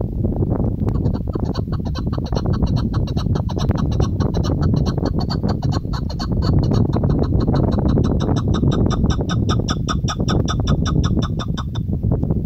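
Chukar partridge calling a long, fast run of repeated chuck notes for about ten seconds, starting about a second in. The calls sit over a heavy rumble of wind on the microphone.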